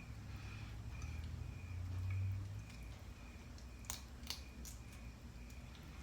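Close-up eating and food-handling sounds from a shrimp boil: a few sharp clicks and soft squishing in the second half, over a low steady hum.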